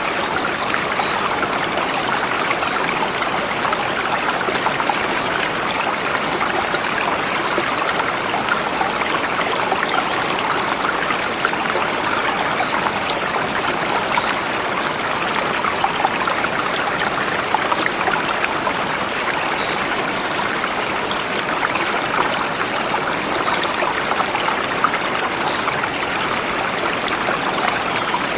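Forest river flowing steadily over rocks, a continuous rushing and splashing of water.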